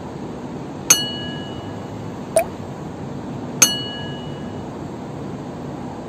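Steady hum of distant city traffic, broken by two ringing metallic clangs about two and a half seconds apart, with a short knock between them.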